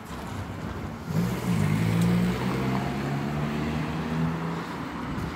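A motor vehicle engine running, a steady low hum that comes in about a second in and slowly fades.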